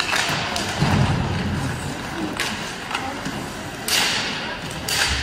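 Ice hockey play: four sharp knocks of puck and sticks against the rink boards, and a heavy low thud about a second in, each with a short echo.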